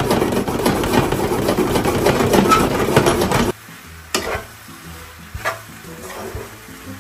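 Pasta being stirred with a spoon in a hot pan of sauce, sizzling with a busy clatter of the spoon against the pan. About halfway through the sound cuts off abruptly, leaving only a few single spoon knocks.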